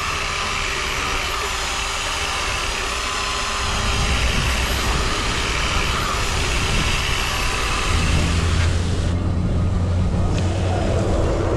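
Corded random orbital sander running against a fiberglass boat hull, then a garden hose nozzle spraying water, first into a bucket and then onto the hull. The sound changes abruptly twice, about a third of the way in and again about two thirds in.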